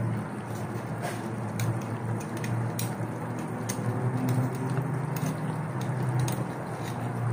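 Chicken adobo simmering in its soy-vinegar sauce in a pan, the liquid bubbling and sizzling with scattered small pops and crackles over a steady low hum.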